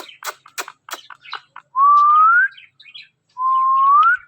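A pet parrot chattering in quick clicking notes, then giving two rising whistles, each under a second long and louder than the chatter.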